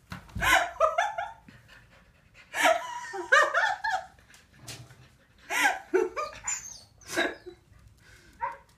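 Finnish Lapphund puppies yapping and whining in repeated bursts of short, high-pitched yips, with brief pauses between the bursts.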